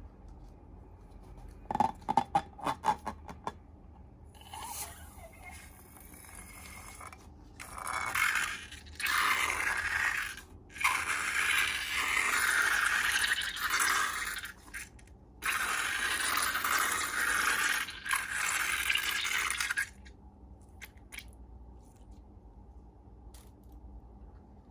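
Hands-on ASMR handling noise: a quick run of sharp crackling clicks, then several long stretches of scraping a few seconds each, with short breaks between them.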